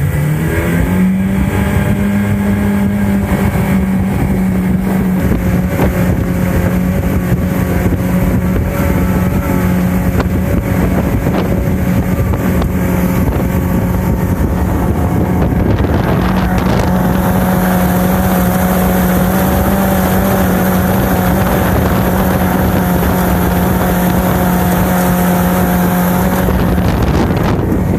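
Mercury outboard motor driving a jet unit, accelerating hard. Its pitch rises over the first second or so, then it holds a steady high-revving note at full throttle, with wind rushing over the microphone.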